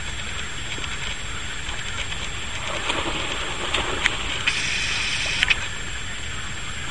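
Water splashing as large Fila Brasileiro dogs swim and wade, over a steady background hiss. The splashing grows louder about three seconds in, with a few sharp splashes, and eases off before the end.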